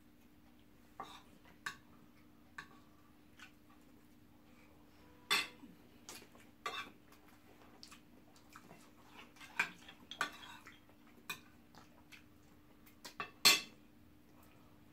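Metal spoons clinking and scraping against ceramic plates of rice and stew in irregular, scattered strikes, the loudest about five seconds in and again near the end, over a faint steady hum.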